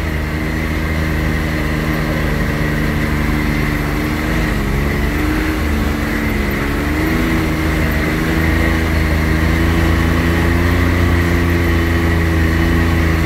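Engine of a 2018 Can-Am X3 Turbo R side-by-side, a turbocharged three-cylinder, running steadily as it drives along a dirt trail, heard from the cab. The revs dip about four seconds in, climb back a few seconds later, and the engine runs a little louder toward the end.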